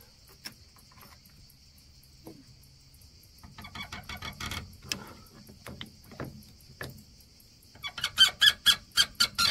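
Brass pipe fitting on a solar water heater collector squeaking in quick, short strokes as it is tightened with adjustable wrenches: a brief run about halfway in, then a louder, faster run near the end. A steady high hiss sits behind it.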